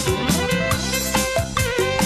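Live band music with a steady drum beat and electronic keyboard parts; a held lead note wavers in pitch in the second half.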